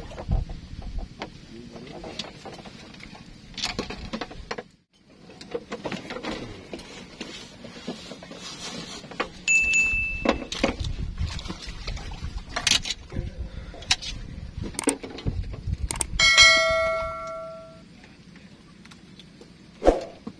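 A single bell ding about sixteen seconds in that rings out for about a second and a half, with scattered knocks and clicks before it.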